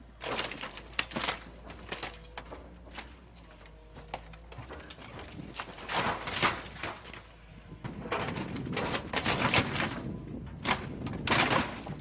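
Excavator grapple claw crushing a Mini Cooper's body: irregular metal crunching and cracking, growing heavier and louder from about halfway through.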